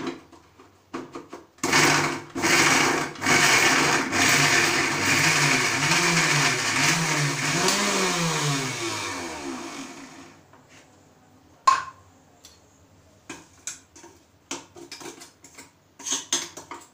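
Electric mixer grinder starting with a couple of short bursts, then running for about eight seconds with its motor pitch wavering up and down as it churns chunks of firm raw guava with garlic, chilli and coriander, winding down about ten seconds in. A few sharp knocks follow. The raw guava does not grind smoothly without water.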